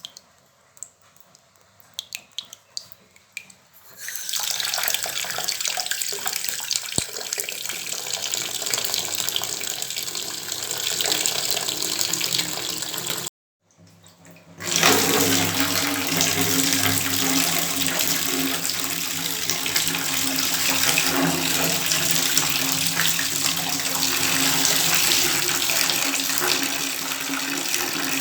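Faint scattered drips, then a water tap turned on about 4 seconds in and running steadily. It cuts off abruptly about 13 seconds in, and after a second of silence a louder, fuller stream of tap water runs to the end.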